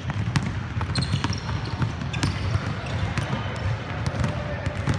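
Basketball being dribbled on a hardwood court, with sharp bounces and short sneaker squeaks from players running.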